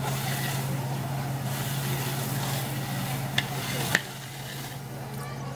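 Steady outdoor hiss with a constant low hum beneath it, broken by two sharp clicks about three and a half and four seconds in, after which the hiss eases.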